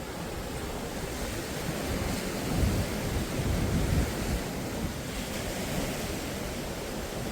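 Sea surf washing on the beach, a steady rushing noise, with wind buffeting the microphone in low rumbling gusts about two and a half to four seconds in.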